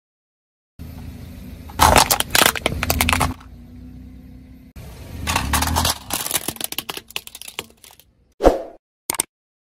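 A car's tyre rolling over and crushing plastic toys on asphalt: a low rumble with two spells of cracking and crunching plastic, then one sharp crack near the end.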